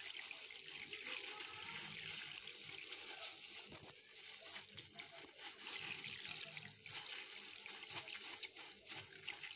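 Water sloshing and splashing in a plastic basin as chlorine powder is shaken out of a plastic bag into it, with the bag rustling and small clicks throughout.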